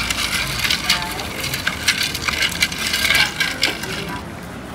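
Ice cubes clinking against glass as a small glass flask of hot coffee is stirred and swirled in a bowl of ice water to cool it. The rapid, irregular clinks stop about four seconds in.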